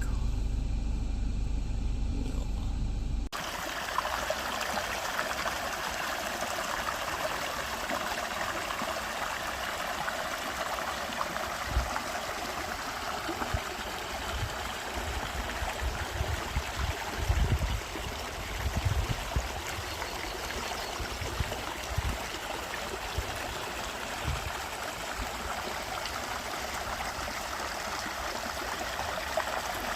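A low vehicle rumble for about three seconds, then an abrupt change to a steady rushing hiss like running water, with a few scattered low thumps.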